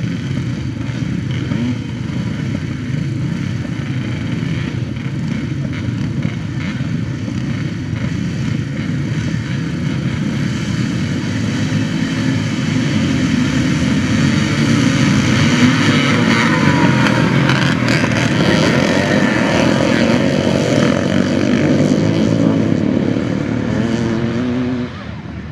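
Classic motocross bikes racing, engines revving hard, building to their loudest in the middle as they pass close. The sound drops suddenly shortly before the end.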